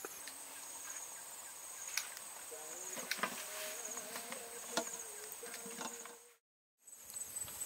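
Insects, crickets or similar, keep up a steady high-pitched chirring, with scattered sharp clicks and a faint wavering tone in the middle. The sound cuts out completely for about half a second near the end.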